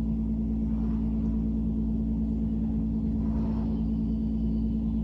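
A steady low hum with several held tones, unchanging throughout.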